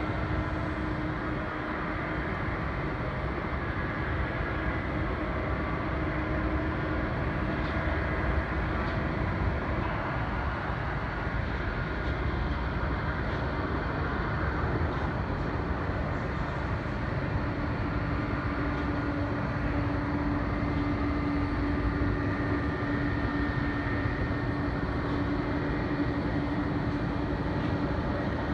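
Steady airport ambience: the continuous rumble of jet airliners taxiing, with faint whining tones and a steady hum that sets in about halfway through.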